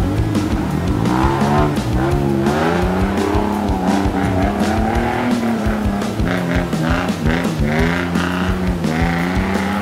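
Jeep Wrangler engine with a Borla aftermarket exhaust revving hard under load up a steep muddy slope, its pitch rising and falling over and over, with short knocks throughout.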